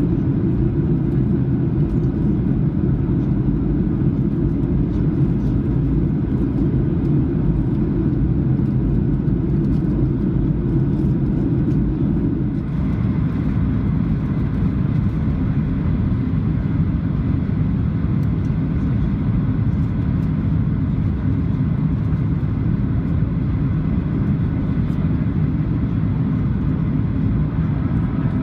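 Steady cabin noise of a Boeing 737-700 in flight: a dense rumble of airflow and engines. About halfway through, the low rumble eases a little and the higher hiss comes up slightly.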